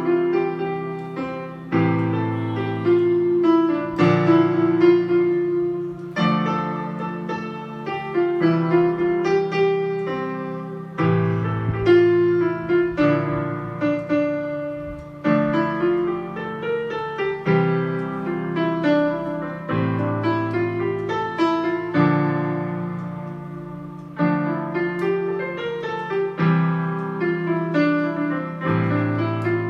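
Yamaha PSR-E473 portable keyboard playing a piano-voice piece, given as a sample of its sound quality: a low chord is struck about every two seconds under a moving melody.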